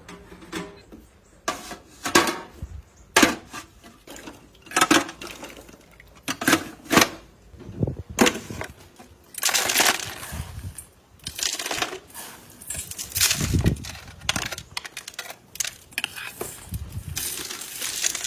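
Irregular clinks and knocks of hard objects being handled, with longer rattling stretches about ten seconds in, around thirteen seconds and near the end.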